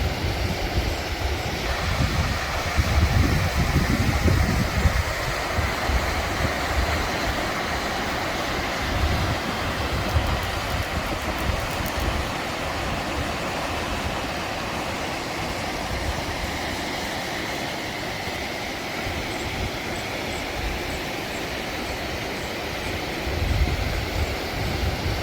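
Steady rush of river water over rocks, with wind buffeting the microphone in gusts, strongest in the first few seconds and again near the end.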